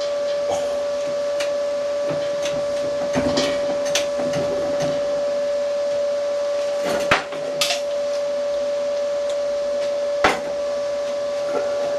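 Sharp metallic knocks and clinks of tools working a seized broken stud, the two loudest about 7 and 10 seconds in, over a steady background hum.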